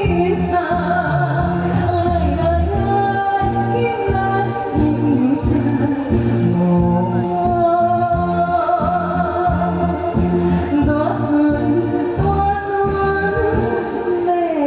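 A singer performing a Taiwanese Hokkien pop song over amplified instrumental accompaniment with a steady bass beat.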